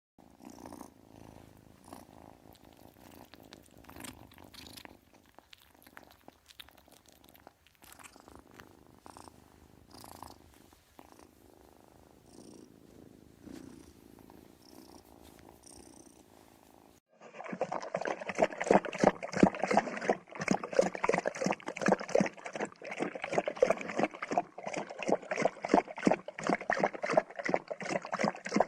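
Domestic cat purring: a quiet, rough purr at first, then, after an abrupt cut about two-thirds of the way through, a much louder, close purr.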